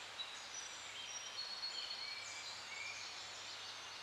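Faint nature ambience: a steady hiss with short, high bird chirps and whistles scattered throughout, over a low steady hum.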